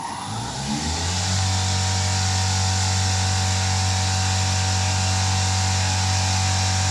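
A machine's electric motor spinning up, rising in pitch over about the first second, then running steadily with a low hum, a steady whine and a high hiss.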